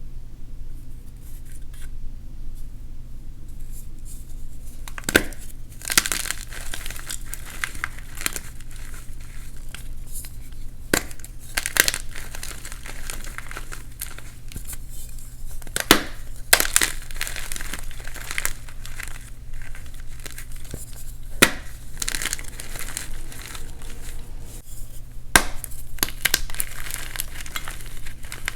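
Reformed gym chalk blocks being crushed: a crumbly, crackling crunch with a sharp snap every few seconds as pieces break. A steady low hum runs underneath.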